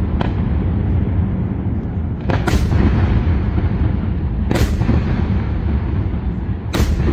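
Fireworks display: aerial shells exploding in quick succession, a continuous rumble of booms with sharp cracking reports about every two seconds.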